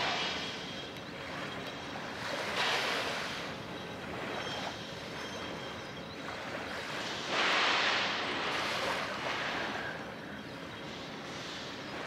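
Water washing: a rushing noise that swells and fades in waves, loudest about seven to nine seconds in.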